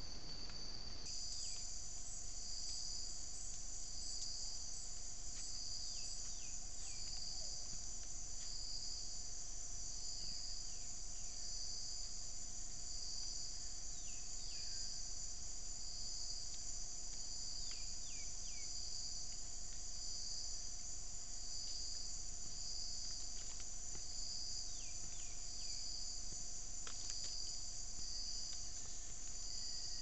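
Rainforest insect chorus: a steady high buzzing that pulses regularly about once a second, with short, high, falling chirps now and then.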